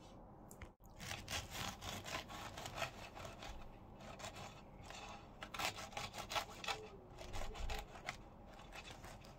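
A Victorinox kitchen knife sawing horizontally through a freshly baked scone, its blade scraping through the crisp crust and crumb in repeated back-and-forth strokes that start about a second in.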